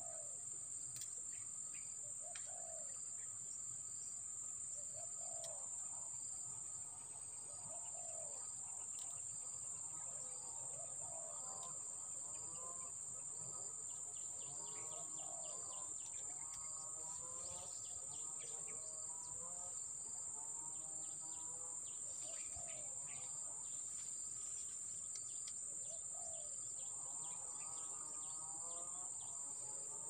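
Birds calling and chirping, with runs of quick fluttering calls through the middle and again near the end, over a steady high-pitched insect drone.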